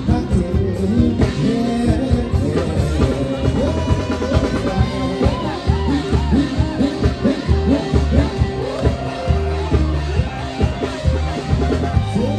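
A man singing a pop song live into a microphone over loud backing music with a steady drum beat and guitar. The held notes waver with vibrato partway through.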